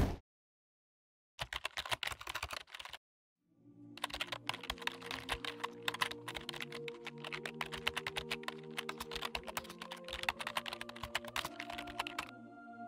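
Computer-keyboard typing sound effect: a short burst of rapid clattering keystrokes about a second and a half in, then a long unbroken run of fast keystrokes from about four seconds in that stops shortly before the end. A soft sustained synth pad of low held notes comes in under the typing at about four seconds.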